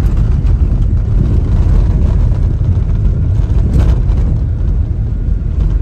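Steady low rumble of a car driving along, road and engine noise heard from inside the moving car.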